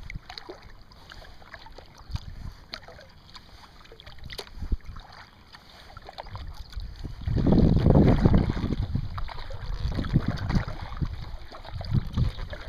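Kayak on calm water: faint drips and small ticks of water at the hull. About seven seconds in, wind starts buffeting the microphone with a loud, uneven low rumble that swells and eases.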